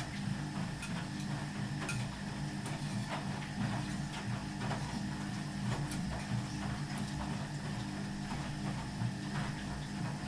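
Ardo washing machine running: a steady low hum with irregular light clicks and knocks.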